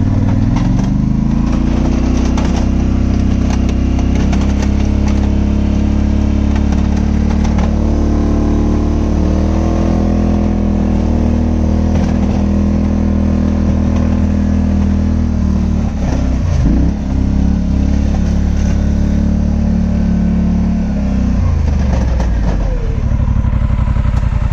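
Polaris Sportsman 850 ATV's parallel-twin engine revving up and pulling steadily under load as it pushes a snow plow, its pitch stepping up a little midway. About two-thirds through the note breaks briefly, and a few seconds before the end the engine drops back to idle.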